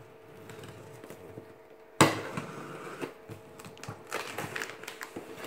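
A knife scraping and slitting packing tape on a cardboard box. A sharp knock comes about two seconds in, followed by irregular scratching and rustling of the cardboard and tape.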